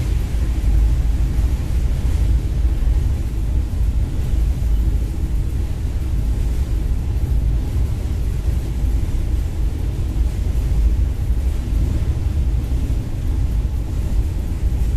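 Steady low rumble of a train's wheels running over the rails of a steel truss bridge, heard from inside a moving passenger coach.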